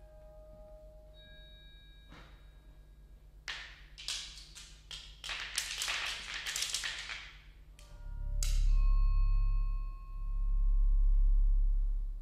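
Electroacoustic computer music: a few held pitched tones, then a dense cluster of sharp, hissy clicks, then deep low swells rising and falling about every two seconds under a held high tone.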